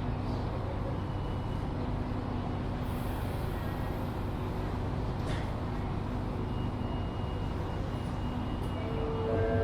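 Steady low rumble of a busy railway station platform. Near the end a public-address chime begins with tones stepping up in pitch, the signal that an announcement is coming.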